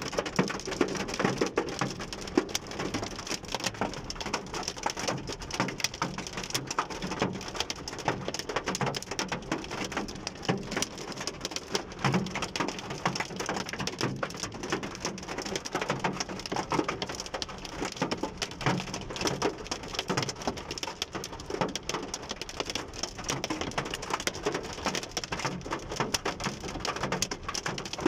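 Heavy rain pelting a car's roof and windows, heard from inside the cabin: a dense, steady patter of sharp ticks.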